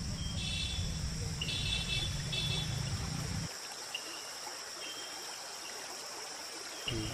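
Open-air pond ambience: a steady high insect drone with short, repeated chirps over it, and a low rumble, like wind on the microphone, that drops away about halfway through and returns near the end.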